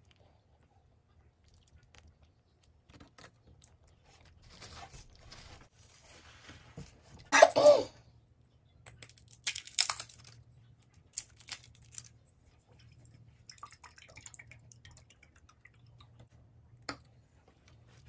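Close-up crunching and chewing of crispy Popeyes fried chicken crust, in scattered bites with sharp crunches about ten to twelve seconds in. A brief, loud cough-like throat sound about seven seconds in is the loudest moment, over a faint low hum.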